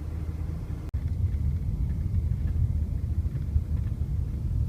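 Low, steady road and engine rumble of a moving vehicle, heard from inside the cabin, with a momentary cut-out about a second in.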